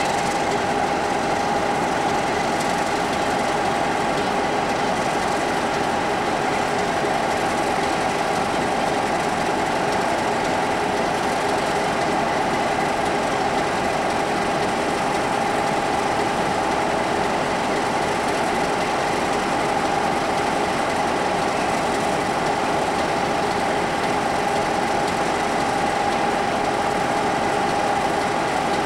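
Diesel locomotives idling at a standstill: a steady engine note with a steady high whine on top.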